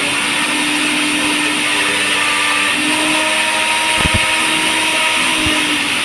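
Usha Maximus Plus 800W mixer grinder motor running at full speed with a loud, steady whirr, with a couple of short knocks about four seconds in.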